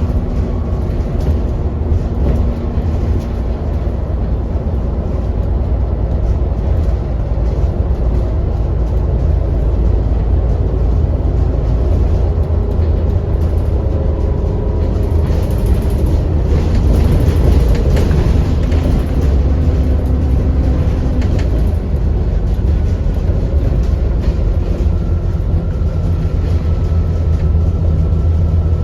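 Alexander Dennis Enviro400 double-decker bus heard from on board while under way: a steady low engine rumble with road noise, and a faint steady whine above it that rises a little near the end, the 'hoover' drone these buses are known for.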